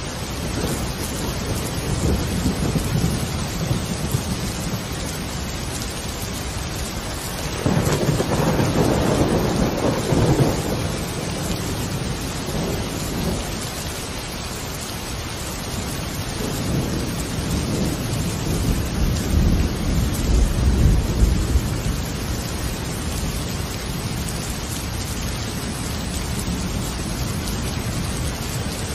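Steady rain with rolling thunder, swelling twice: about eight seconds in and again around twenty seconds in.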